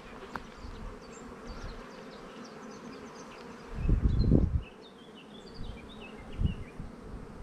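Honeybees buzzing as they fly around the entrance of a hive they have just been moved into, still orienting to the new home: a steady hum, with a louder low swell for under a second about four seconds in.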